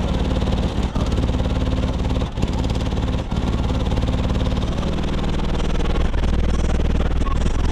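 Loud bass music played through a truck's sound system of four 18-inch subwoofers, heard from outside the truck, with deep low notes dominating.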